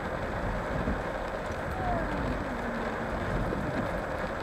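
Steady rush of stormy wind and rain, heard from inside a car.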